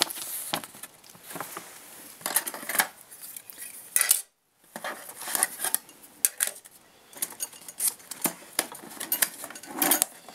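Hands rummaging through a cardboard box and handling the Shooting Chrony chronograph's loose white plastic pieces, with paper rustling: irregular clicks, clacks and rustles. The sound cuts out completely for a moment about four seconds in.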